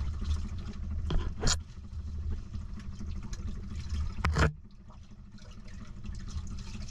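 Underwater water noise on the microphone over a steady low hum, broken by three sharp clicks or knocks, the loudest about four and a half seconds in.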